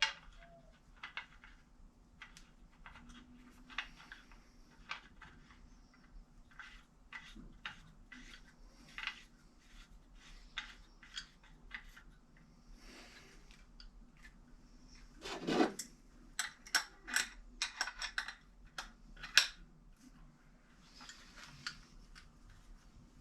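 Scattered small metallic clicks and taps of hand tools and fittings as a fuel line fitting is threaded and snugged into a throttle body. About halfway through there is a louder knock, followed by a quick run of clicks.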